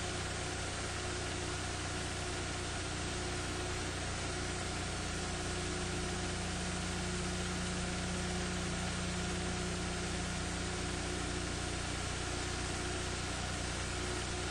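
Steady low hum with an even hiss over it, unchanging, and no other sound: background noise of a silent recording.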